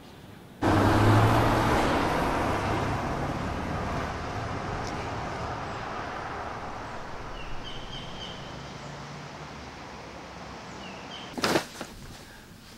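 Road traffic noise: a vehicle passing close by on the road, a loud rush that starts suddenly about half a second in and then slowly fades away. Faint bird chirps come in around the middle, and there is a short, sharp knock shortly before the end.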